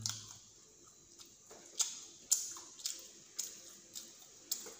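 Eating noises: a scattered run of short, sharp mouth clicks and smacks from chewing fried chicken pieces and picking at them with the fingers, most of them in the second half.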